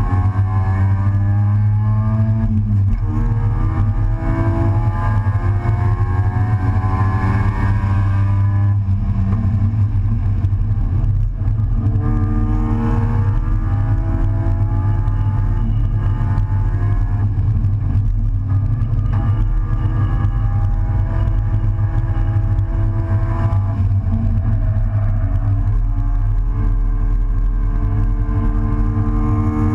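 Race car engine heard from inside the open, stripped cockpit under hard track driving. It repeatedly climbs in pitch under acceleration and drops back at each gear change or lift for a corner, over a heavy low rumble.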